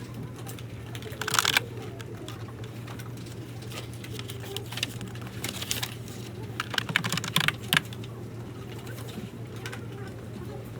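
Typing on a computer keyboard in short bursts of quick key clicks a few seconds apart, over a steady low hum.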